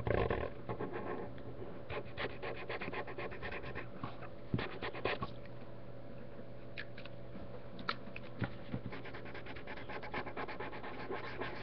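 Marker scratching on paper in quick, repeated colouring strokes, with a few sharper taps, over a steady low hum.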